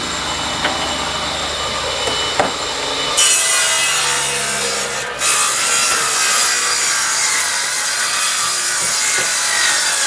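Table saw cutting through a wooden panel being fed across the blade. About three seconds in, the cutting noise becomes suddenly louder and brighter and stays that way.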